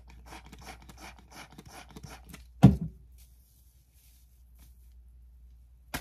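Aerosol foam crackling and squishing as it is pumped out and handled in the hands, then one loud heavy thump about two and a half seconds in. Near the end comes a sharp slap as a handful of foam is slapped onto the head.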